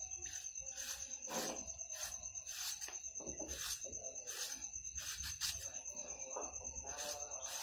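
Repeated scraping strokes of a hand shredder drawn across a peeled vegetable, roughly one stroke a second, shreds falling into a plastic colander. A steady high chirring of crickets runs underneath.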